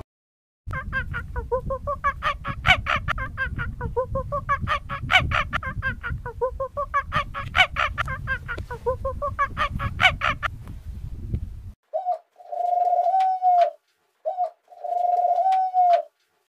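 Animal calls: a long run of rapid, pulsing calls in repeated phrases, each phrase rising and falling in pitch, then two longer, steadier calls.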